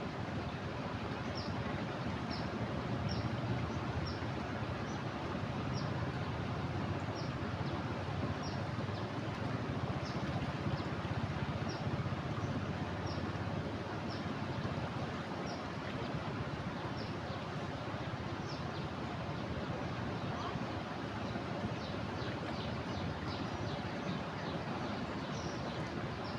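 Steady rushing of a river running high in flood. A short high chirp repeats about once a second throughout, coming faster near the end.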